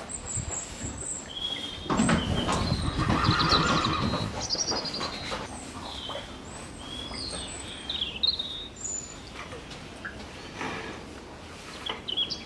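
A horse whinnies once, about two seconds in, for a couple of seconds. Small birds chirp in the background.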